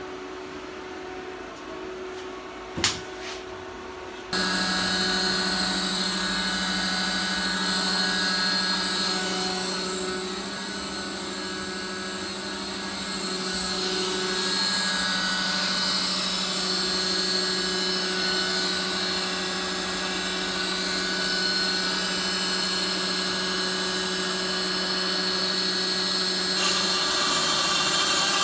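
A sharp click, then a CNC router's machinery switching on about four seconds in and running steadily: a constant hum under a high, whining mix of tones, which shifts near the end.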